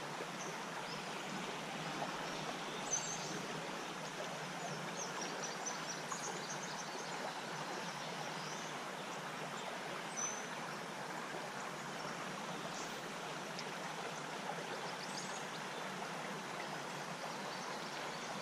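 Small creek running steadily over rocks, an even rush of water, with a few faint high chirps.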